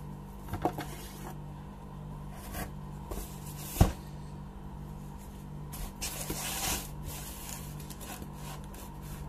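Handling a taped cardboard parcel: a few light knocks, one sharp knock just before four seconds in, then about a second of scraping and rustling as a kitchen knife starts on the packing tape and cardboard, over a steady low hum.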